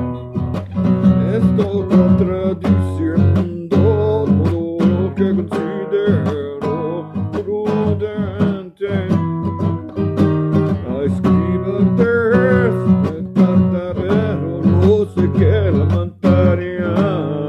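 Charango strummed in a quick, steady rhythm, its chords ringing between strokes.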